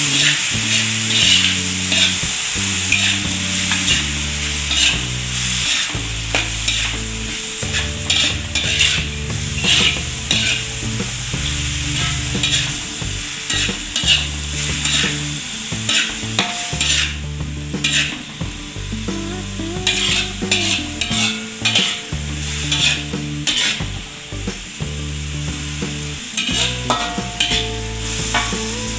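Metal spatula scraping and tapping against a wok over and over, stir-frying bamboo shoots, bean sprouts and vegetables over a steady sizzle. Underneath are low steady tones that shift in pitch every second or so.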